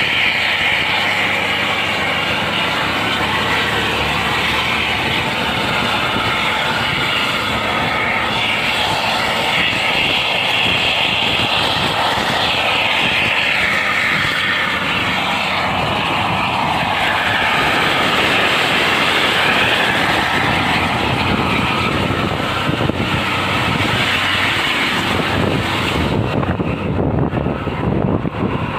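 Steady loud roar of buses driving at speed: diesel engine and road noise, swelling and easing a few times in the middle.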